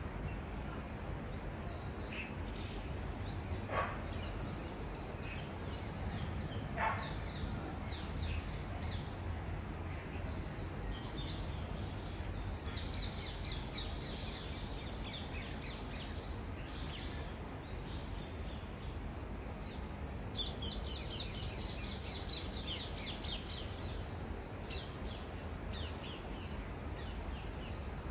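Many small birds chirping and singing over a steady low rumble of distant city traffic, with two louder, lower bird calls about four and seven seconds in.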